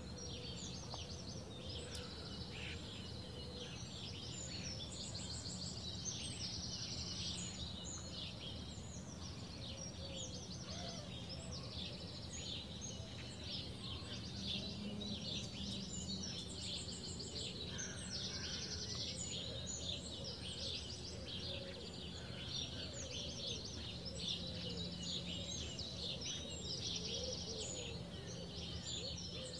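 Small songbirds chirping and trilling, with many short overlapping calls and quick rapid-note runs, over a steady low background hum.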